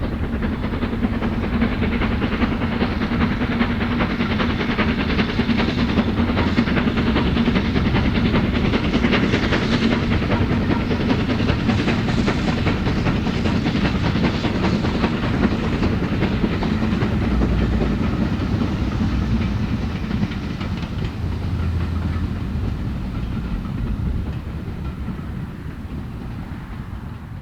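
Preserved steam locomotive working a train past, a steady loud rumble of the engine and its train that begins to fade near the end.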